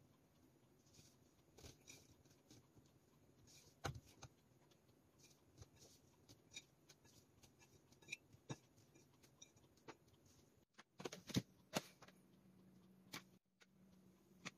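Faint, scattered light taps and clicks from mini marshmallows being set down on a waffle maker's nonstick plate and picked from a plate beside it, over near silence. A cluster of slightly louder clicks comes about three quarters of the way through.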